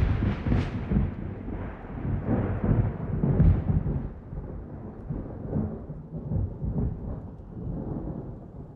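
Thunder rolling over steady rain. The rumble surges at the start and again about three and a half seconds in, then dies away into the rain.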